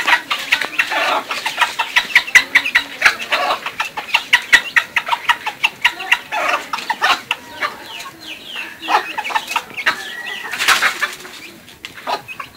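Chickens clucking: a quick run of short, sharp calls, many overlapping, that thins out near the end.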